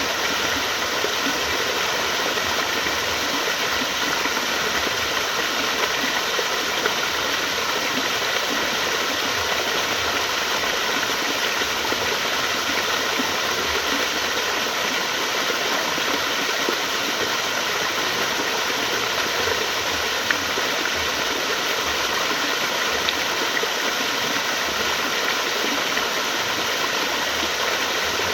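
Water flowing steadily, a continuous even rushing.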